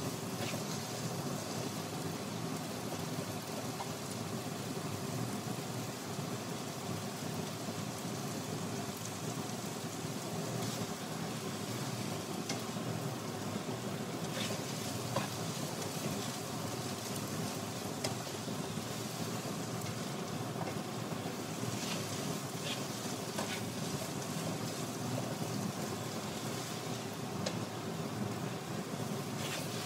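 Diced potatoes sizzling as they fry in a non-stick pan, a steady hiss with a few faint clicks.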